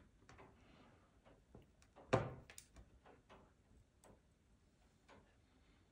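Faint clicks and light knocks from hands handling and prying at a Beoplay S3 speaker chassis to free a glued-in board, with one louder knock about two seconds in.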